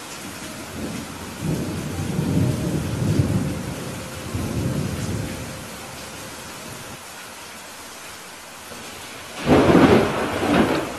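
Steady rain with thunder: a low rumble swells and fades a second or two in, then a louder, sharper thunderclap breaks near the end.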